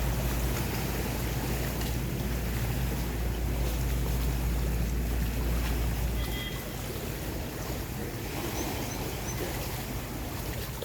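Boat engine running with a steady low hum that drops away about six seconds in, over a constant rush of wind and water.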